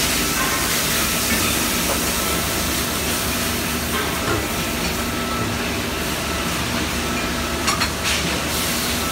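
High-frequency induction brazing machine running steadily on rotary compressor cases, a constant hiss with a faint steady hum under it, while the copper tube joints heat to red. A few faint clicks come near the end.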